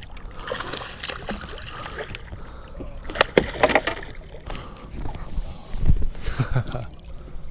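Hooked largemouth bass thrashing and splashing at the surface beside a boat, with water sloshing and several sharp splashes, the biggest about three and six seconds in.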